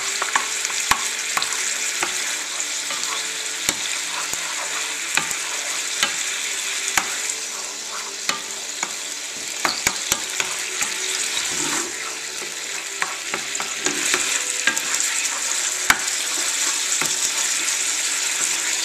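Carrot sticks sizzling in sauce in a hot non-stick frying pan, a steady hiss, while a wooden spatula stirs them and scrapes and taps against the pan with irregular clicks.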